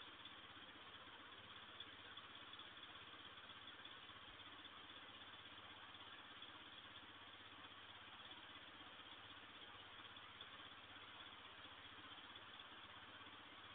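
Near silence: steady hiss from a security camera's microphone, with a faint low hum underneath.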